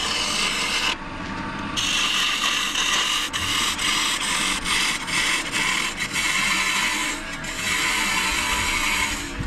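Bowl gouge cutting a spinning glued-up hardwood furniture leg on a wood lathe, a wood the turner takes for maple. The steady shearing noise of the tool peeling off shavings breaks off for under a second about a second in, and stops briefly several times through the middle.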